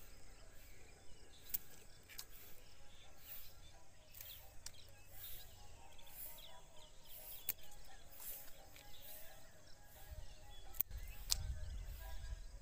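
Scissors snipping purple heart plant stems: several sharp clicks a few seconds apart, over faint bird chirps and outdoor ambience. A low rumble comes in near the end.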